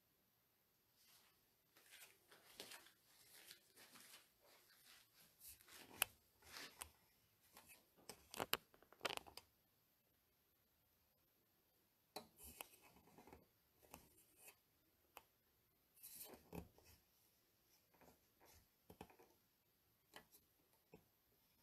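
Faint handling noises: scattered small clicks, taps and rustles, in two spells with a pause of about two seconds in the middle.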